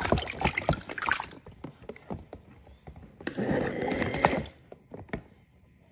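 Water splashing and sloshing as toy sea animals are moved around in a container of water: a run of quick splashes in the first second, then a longer slosh about three and a half seconds in.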